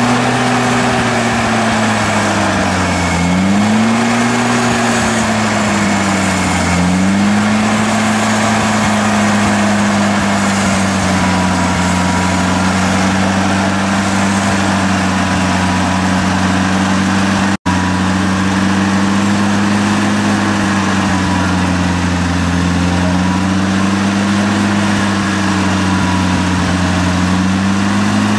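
Soviet 4x4 jeep's engine running under load as it crawls through deep mud, the revs rising and falling three times in the first several seconds, then holding fairly steady with slow, gentle swells.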